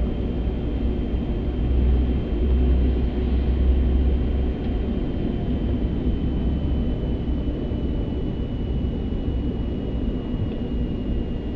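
Airbus A380 flight deck while taxiing: a steady low rumble of engines and airframe, heavier a couple of seconds in, with a thin high whine that sinks slightly in pitch.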